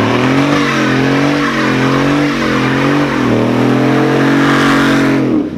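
Chevrolet Silverado pickup's engine revving as the truck pulls away, its pitch rising, dipping about three seconds in and rising again, then cutting off suddenly near the end.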